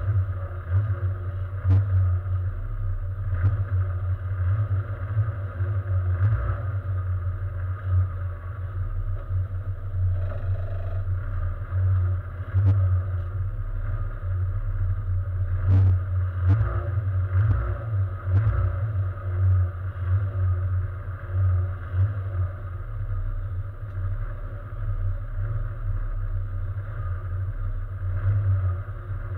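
Race car engine idling steadily in neutral, a low, slightly lumpy drone heard from inside the cabin, with a few brief knocks.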